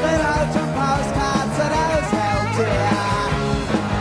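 Punk rock band playing live: a sung lead vocal over electric guitar, bass and drums, loud and continuous.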